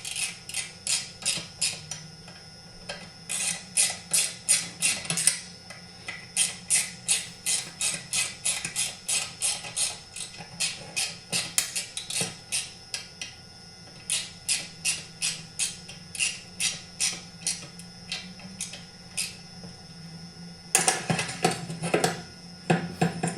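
Ratchet wrench clicking in runs of about four clicks a second as the chainsaw's handlebar bolts are torqued down, with short pauses between the runs. A louder clatter of tool knocks comes near the end.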